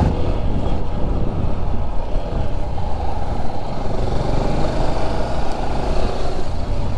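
Motorcycle engine running steadily at a gentle cruise, heard from the rider's seat with wind rushing over the microphone.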